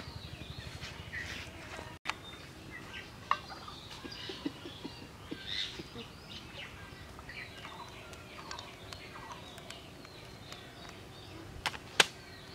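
Birds calling in the background, with many short chirps and calls scattered throughout. A low hum runs in the first two seconds, and a single sharp click comes near the end.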